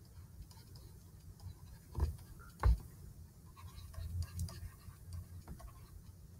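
Stylus writing on a tablet or pen-display surface: faint scratching and tapping, with two knocks under a second apart about two seconds in.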